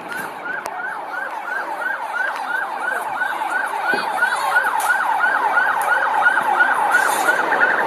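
Riot police vehicle siren on a fast yelp, about four rising-and-falling whoops a second. Near the end a faster, higher pulsing tone briefly joins it.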